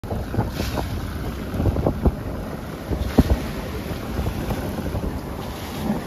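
Wind buffeting the microphone in rumbling gusts, with sudden louder bumps a few times, over the rush of water along the hull of a sailboat under way at sea.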